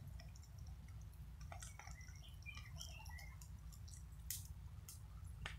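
Brush pile of branch clippings burning, crackling with scattered sharp pops; the loudest pops come a little over four seconds in and just before the end. A low steady rumble runs underneath.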